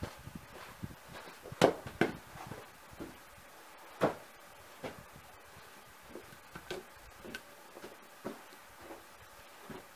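Wooden knocks and thumps from a log being handled onto a wooden sawhorse. Two sharp knocks come about two seconds in, then a heavier thump about four seconds in as a short log round lands on the ground. Lighter scattered knocks and footsteps follow.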